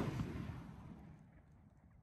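The rumbling echo of a 5-inch canister firework shell's burst overhead, fading out over about a second, then a few faint pops.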